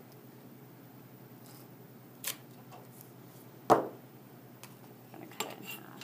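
Craft tools being handled on a cutting mat: a light tap, then one sharp knock about halfway through, then a few small clicks near the end, as the roll of duct tape and the steel ruler are moved and set down. Otherwise quiet.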